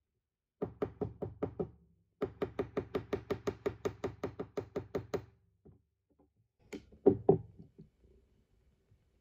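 Small metal-headed hammer tapping 18-gauge copper wire flat on a small steel jewelry anvil in quick, even taps: a short run of about seven, a brief pause, then a longer run of about twenty at some seven taps a second. A few scattered clicks and a couple of louder knocks follow about seven seconds in.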